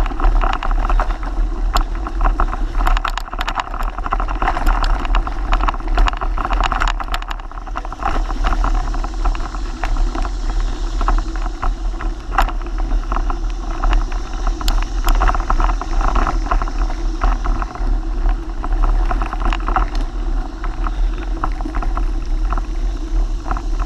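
Mountain bike riding over a dirt trail: steady wind rumble on the microphone and tyre noise, with frequent clicks and rattles from the bike, busiest in the first several seconds.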